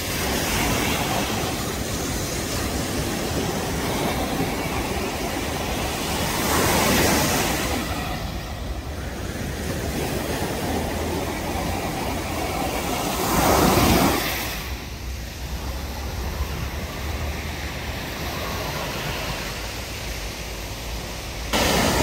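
Small surf waves breaking and washing up a sandy beach: a steady rush of noise that swells twice, about seven and fourteen seconds in. Wind rumbles on the microphone underneath.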